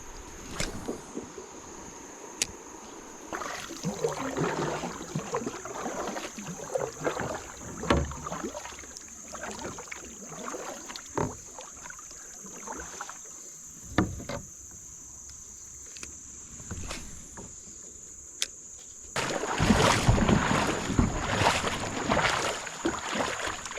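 Kayak paddling on a creek: irregular paddle strokes and water splashing and dripping, with a few sharp knocks. The splashing grows louder and steadier about 19 seconds in.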